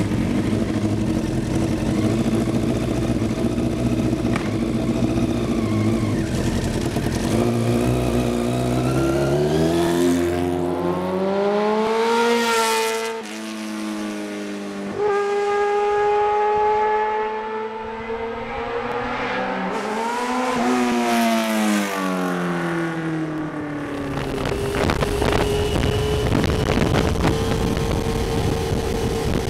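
Sport motorcycle engine pulling away, its revs climbing, then a motorcycle passing by with a falling pitch. Later another one passes close by with the pitch dropping. Near the end, onboard engine running steadily at speed under wind rush.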